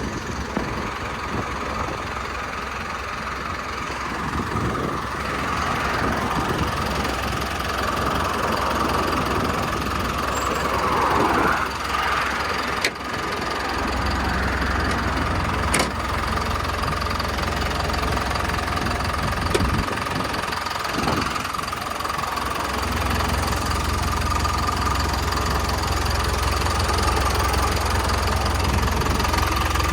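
Hyundai HD78 truck's diesel engine running steadily, with a constant whine over it and a deep low drone that swells about halfway through and again near the end.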